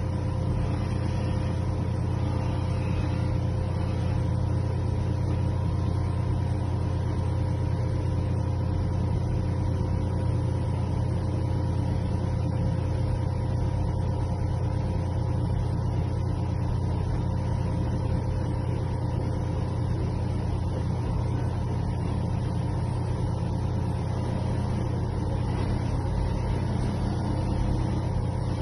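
Dental vacuum-forming machine running with a steady, unbroken motor hum while a 2 mm acetate splint sheet is heated and formed.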